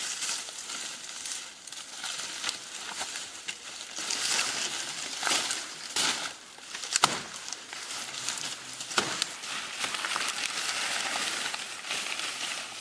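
Dry grass and dead leaves rustling and crackling as a person pushes through and crouches in dense undergrowth, with a few sharp snaps, the loudest about seven seconds in.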